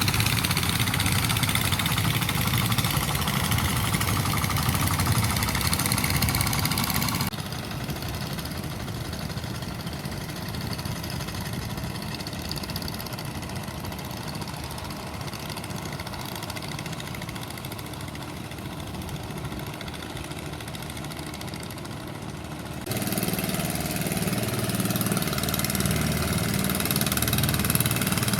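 Engine running steadily. Its level drops abruptly about seven seconds in and comes back up just as abruptly about 23 seconds in.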